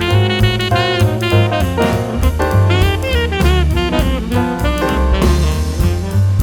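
Jazz background music: a saxophone melody over bass and a drum kit keeping a steady beat.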